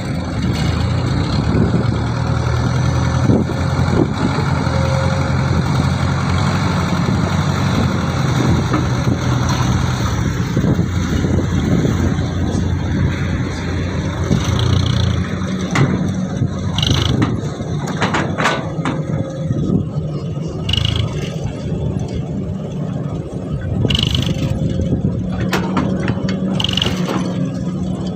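Isuzu dump truck's diesel engine running steadily, its pitch shifting a few times, with scattered knocks and scrapes.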